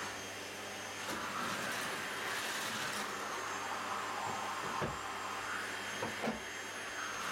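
Household vacuum cleaner running steadily, a continuous suction rush with a steady hum. Two short, soft knocks come about five and six seconds in.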